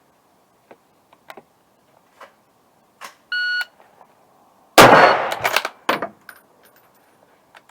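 A Ruger Scout bolt-action rifle in .308 fired once, very loud, about five seconds in, followed at once by sharp metallic clacks of the bolt being racked. Before the shot come a few light clicks and a short electronic beep.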